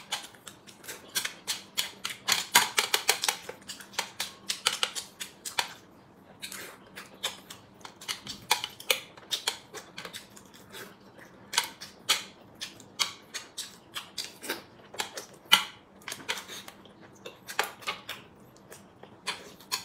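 Close-up eating sounds of a man chewing dumplings: quick, wet smacking mouth clicks in irregular runs, with a short lull about six seconds in.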